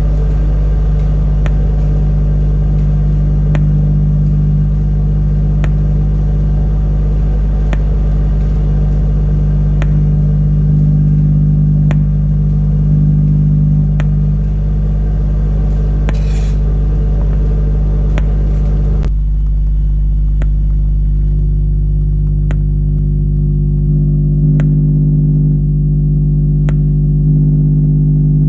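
A Citroen DS3's standard OEM door speaker playing a 50 Hz test tone: a loud steady low hum with a buzzy overtone. About two-thirds of the way through, the higher buzz drops out abruptly while the low hum goes on.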